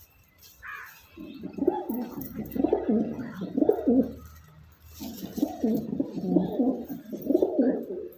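Pigeon cooing: two bouts of low, rolling coos, each about three seconds long with a short pause between them.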